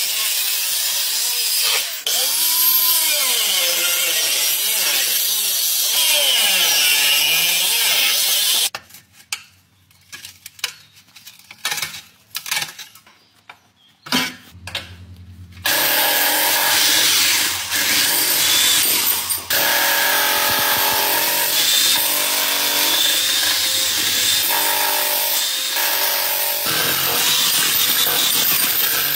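An angle grinder with a thin cut-off disc cuts through the rusty steel shell of a catalytic converter, its pitch wandering as the disc is loaded. About nine seconds in it stops, leaving a quieter stretch of clicks and handling. At about 16 seconds a power tool starts up loudly again on the metal and runs to the end.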